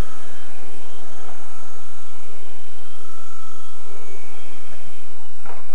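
E-flite Blade CP collective-pitch electric RC helicopter hovering low, its motors and rotor making a steady whine that shifts a little in pitch and drops slightly near the end as it comes down to land. It is running on an 11.1 V battery.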